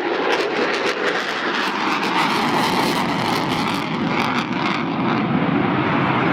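F-14 Tomcat's twin jet engines running as the fighter flies a slow, low-speed pass, heard as a steady loud jet noise.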